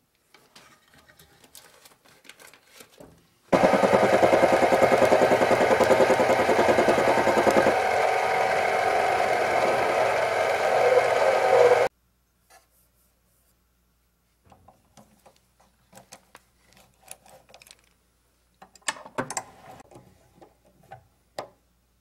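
King Canada mini-lathe running for about eight seconds with a steady motor and gear whine, cutting in and out abruptly. Before and after it, light metal clicks and knocks come from handling the four-jaw chuck and workpiece, with a cluster of them near the end.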